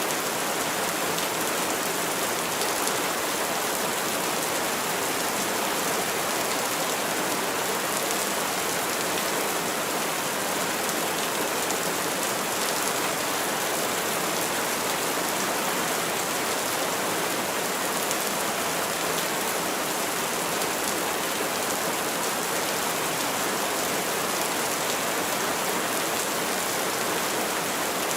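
Steady, heavy rain falling, a dense even patter of drops on surfaces with no let-up or thunder.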